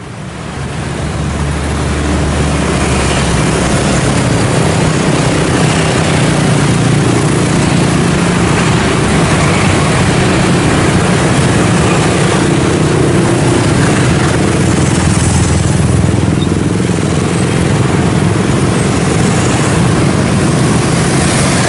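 Dense road traffic at a busy junction, mostly motorcycles and scooters with a few cars and minivans: a steady, loud mix of small engines and tyre noise. It fades in over the first two seconds.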